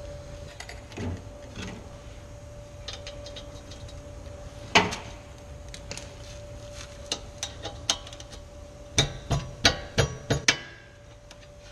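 Metal clinks and knocks of hand tools at a car's front brake, as a ratchet wrench is handled and set on the caliper bracket bolt. There is one sharp knock about five seconds in and a quick, irregular run of clicks near the end, over a faint steady hum.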